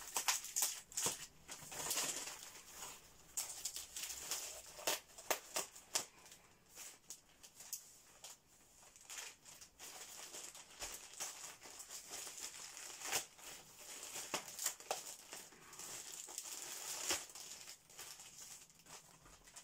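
Plastic mailer bag crinkling and rustling as it is handled, pulled open and emptied by hand, in irregular crackles.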